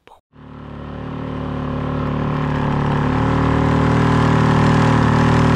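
Engine of a large boat running steadily, heard on board: a loud, even drone that fades in over the first two or three seconds.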